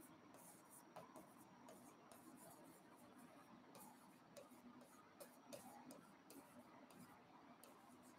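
Faint taps and light scratches of a pen writing on an interactive touchscreen board, a scatter of small ticks.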